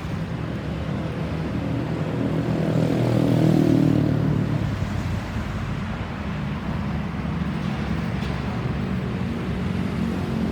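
A motor vehicle passing close by: its engine sound swells to its loudest about three and a half seconds in, then fades back into steady traffic noise.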